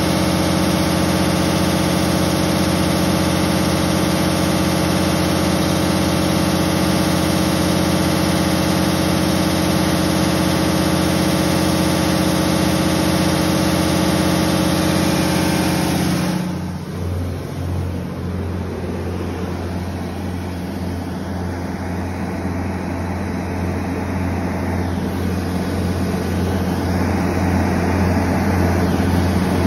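Cummins 6CT8.3-G2 inline-six diesel engine of a 125 kW generator set running steadily, warmed up. About 16 seconds in the sound changes suddenly: the higher part drops away, leaving a deeper, lower drone that slowly grows louder.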